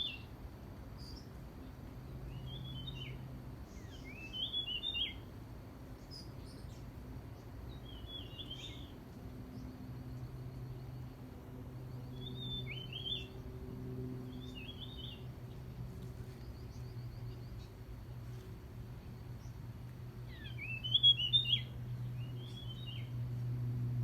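Wild forest birds calling in short chirping phrases every few seconds, loudest about four seconds in and again near the end. Under them runs a low steady hum that grows louder toward the end.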